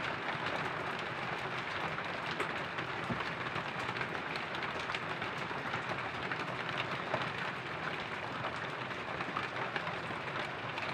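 Thickened chicken hot and sour soup bubbling at a boil in a wok: a steady, even bubbling hiss with scattered faint ticks and pops, just after cornflour slurry has gone in.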